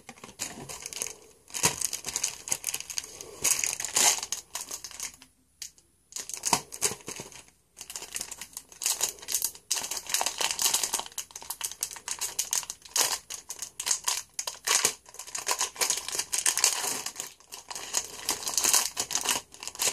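Foil wrapper of a football trading-card pack crinkling as it is handled and pulled open, in irregular crackly bursts with brief pauses about five and eight seconds in.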